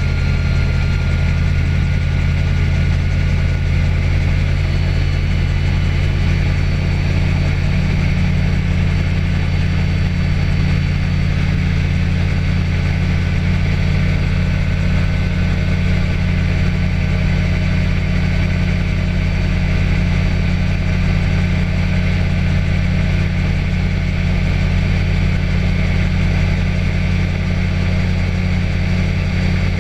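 Small aircraft engine running steadily in flight, heard on board: a loud, even drone that holds one pitch throughout.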